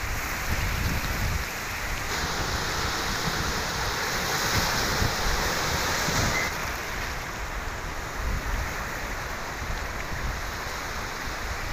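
Sea surf breaking and washing over rocks and the shore, with wind buffeting the microphone in a low rumble. The surf swells louder for a few seconds in the middle.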